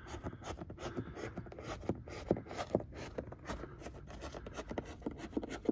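Fingers pressing a thin power cable into the gap between a car's headliner edge and the rubber door weatherstrip: soft, irregular rubbing and scraping with many small clicks.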